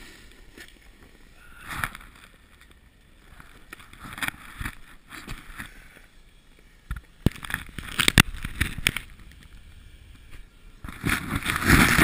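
Snowboard scraping over packed snow, with knocks and rubbing on the GoPro. Quiet at first, then louder bursts of clicks and scrapes in the second half, loudest near the end.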